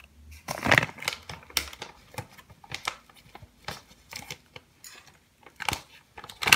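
Kraft paper bag crinkling and rustling in a string of short, irregular bursts as it is handled and opened, loudest about a second in and again near the end.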